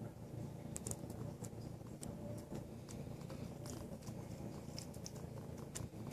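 A tabby cat licking a man's bearded chin and neck close to the microphone: irregular wet licking clicks, a few a second, over a steady low purr.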